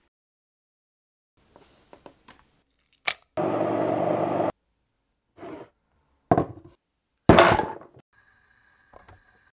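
Immersion stick blender runs in a short burst of about a second, blending aloe vera gel, followed by two sharp thunks a second apart as soap base is diced on a wooden board.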